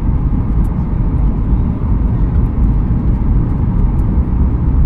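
Steady, loud low roar inside the cabin of a Boeing 737 MAX 8 on its descent to land, from its CFM LEAP-1B engines and air rushing past the fuselage, with a few faint ticks.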